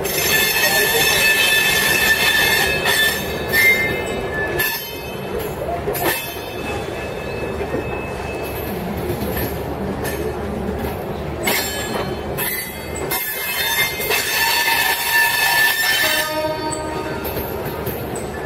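Passenger train's steel wheels squealing on the rails in several high, whining tones over the rumble of the moving coaches. The squeal is strongest in the first few seconds and again near the end.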